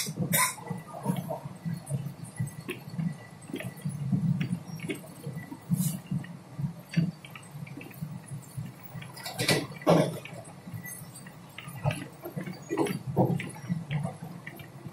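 Moving passenger train heard from inside the coach: a steady low rumble with irregular knocks and rattles, the sharpest right at the start and again about nine and a half seconds in.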